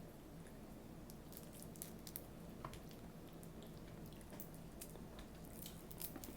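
Faint wet chewing and mouth sounds of people eating, with scattered short squishy clicks over a steady low hum.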